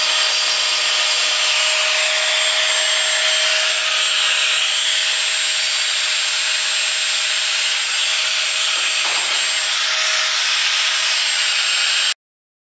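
Electric angle grinder running steadily and grinding steel: a harsh hiss with a faint steady whine over it. It cuts off suddenly near the end.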